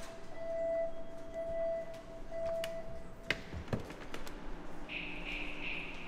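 A single-pitched beep repeats about once a second and stops about three seconds in. Then come two knocks from the swinging glass metro exit doors, and near the end a short high chirp in three quick pulses.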